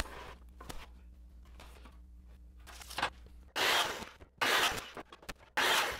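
Faint marking and handling sounds, then from about three and a half seconds in a handheld circular saw crosscutting a wooden board into sections. The saw is heard as three or four short bursts of harsh noise that start and stop abruptly.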